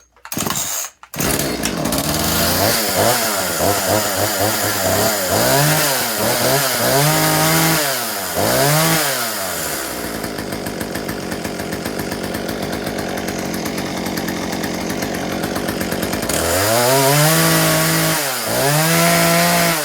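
Homelite 18-inch 38cc two-stroke chainsaw starting about a second in, then revved up and back down several times. It idles steadily for several seconds, then is revved twice more near the end, running out cleanly.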